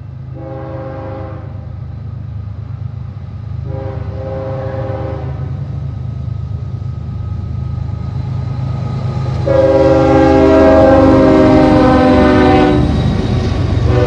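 Freight locomotive air horn, several notes sounding together, blowing three blasts, the third much longer and louder, with a fourth starting near the end: a crossing warning sequence. Under it the diesel engines of the approaching UP 7721 and NS 7629 rumble, growing louder as the train draws near.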